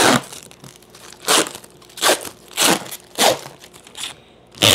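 Clear plastic wrapping crinkling and rustling as it is pulled off a resin 3D printer, in a run of short rustles, with a long loud rustle near the end.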